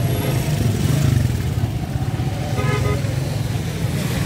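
Road traffic passing close: car and pickup engines running with a steady low rumble and tyres swishing on a wet road, and a short horn toot a little past halfway.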